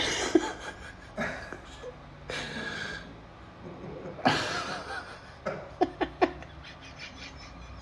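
A man laughing in short bursts with breathy gasps between them.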